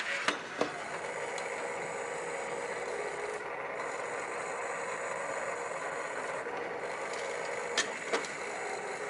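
Sharp clicks of hard plastic robot modules being set down and fitted together by hand, a pair shortly after the start and another pair near the end, over a steady background hiss.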